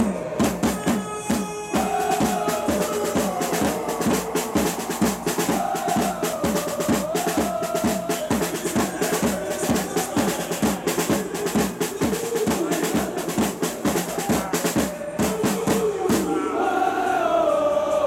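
Supporters' drum section beating marching bass and snare drums in a fast, steady rhythm, with a crowd of football fans singing a chant over it in waves.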